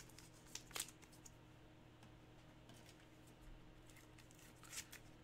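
Near silence over a faint steady hum, broken by a few faint clicks and taps from a clear plastic card holder being handled, about a second in and again near the end.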